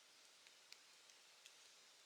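Campfire crackling faintly: a few small, scattered pops over a soft steady hiss.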